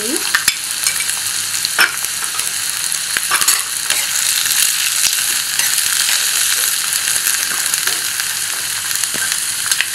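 Onion, green chilli, capsicum and green peas sizzling in oil in a non-stick wok, stirred with a steel spoon that scrapes the pan and clicks against it a few times.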